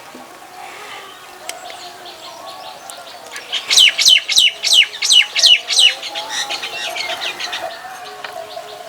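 Birdsong: a fast run of about a dozen sharp, falling chirps in the middle, over a steady, lower, wavering tone.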